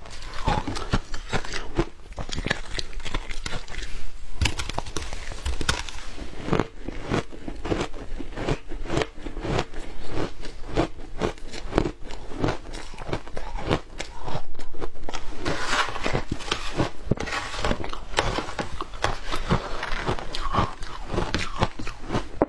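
Shaved ice being crunched and chewed, with a metal spoon scraping and scooping crushed ice in a plastic tub: a dense, irregular run of crisp crunches.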